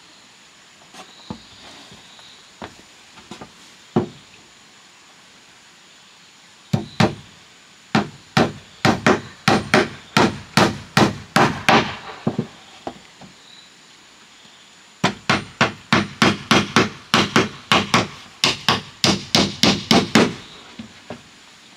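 Hammer blows: a few scattered taps, then two long runs of quick, even strikes at about three a second, with a pause of a few seconds between the runs.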